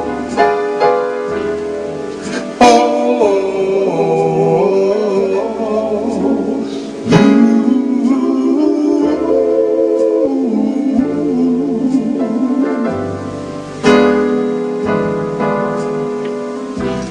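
Electronic keyboard playing a slow, mellow instrumental: sustained chords over a stepping bass line, with new chords struck about three, seven and fourteen seconds in. A wavering melody line with vibrato sings over it, a wordless vocal.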